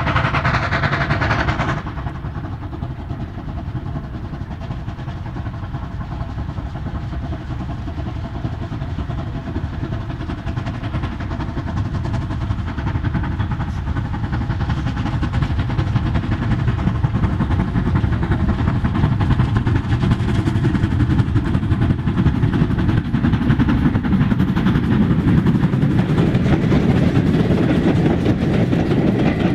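Double-headed steam locomotives, GWR 2800-class 2-8-0 no. 2807 and Modified Hall 7903, working a passenger train, growing steadily louder as the train draws near. Over the last few seconds the coaches pass with rail clatter. A louder part cuts off suddenly about two seconds in.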